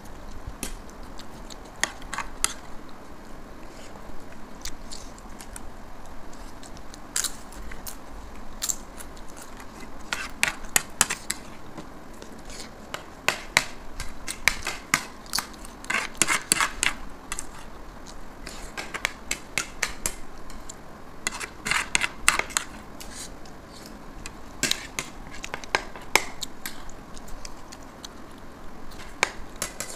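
Metal spoons clicking and scraping against ceramic plates, with chewing. The clicks come irregularly in quick clusters, busiest through the middle.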